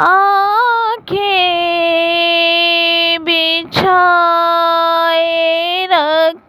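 A high solo voice singing an Urdu naat unaccompanied, holding long drawn-out notes with brief pauses for breath.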